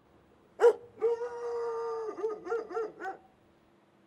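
A dog barking once, then giving one long howl, then a quick run of about five short barks that stops a little after three seconds in.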